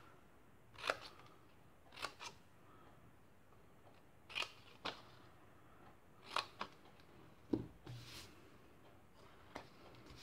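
Small craft scissors snipping into card stock: short, sharp snips, several of them in close pairs, cutting slits along the score lines of a paper box.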